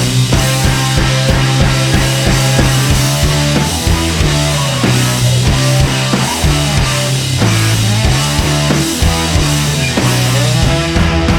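Rock music with a loud, heavy bass line and a steady drum beat.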